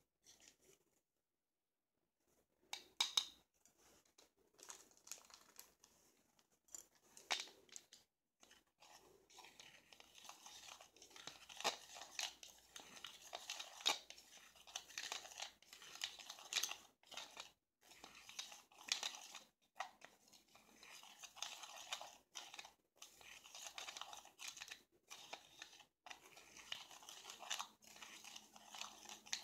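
Loose nail glitter being stirred and tossed by hand in a clear plastic bowl: an irregular gritty rustle and scrape. A couple of sharp clicks come a few seconds in, and the rustling grows denser and steadier after about ten seconds.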